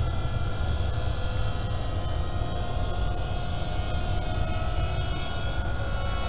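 RC model airplanes' motors and propellers whining overhead: several steady tones that drift slightly up and down in pitch, over a steady low rumble.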